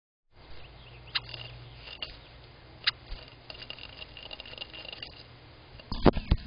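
Eastern bluebird's claws clicking and scratching on the wooden nest box as it clings at the entrance hole. Near the end come a few loud thumps and a flutter as it drops inside onto the nest.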